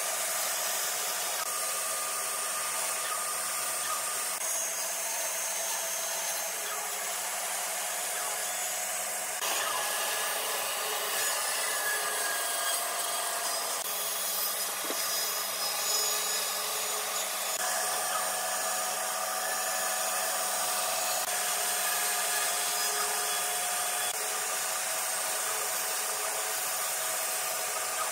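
Bandsaw running, its blade cutting through a glued-up panel of end-grain wood blocks with a steady hiss and hum. The sound changes abruptly twice, about a third and two-thirds of the way through.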